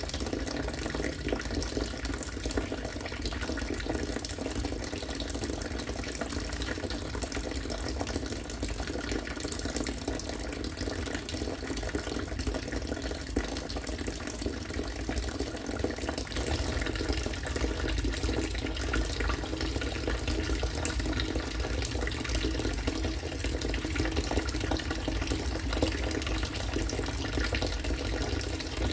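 Harvested rainwater falling in a steady, unbroken stream of running, splashing water.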